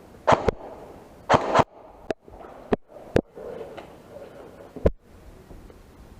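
Airsoft guns firing single shots: sharp knocks at irregular spacing, about seven in six seconds, two of them followed by a short hiss.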